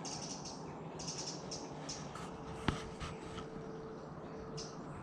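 European robin singing in short, high warbling phrases with gaps between them. A single sharp click about halfway through, and a faint steady low tone for a few seconds in the middle.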